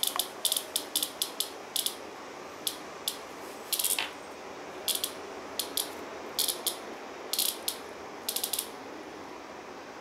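A large brown cicada giving short, harsh buzzing squawks in quick clusters while a cat paws it: the distress calls of a caught cicada. The bursts stop about a second and a half before the end.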